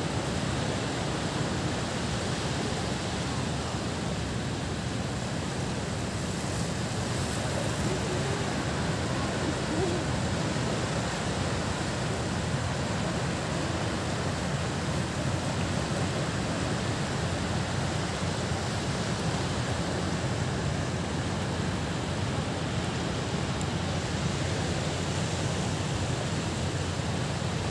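Steady beach ambience: a low, rumbling hiss of wind and distant surf with no break.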